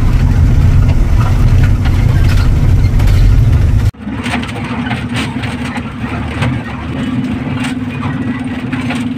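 Vehicle engines and road noise on a dusty dirt road: a heavy low rumble, then, after a cut about four seconds in, a steadier engine hum with light rattling.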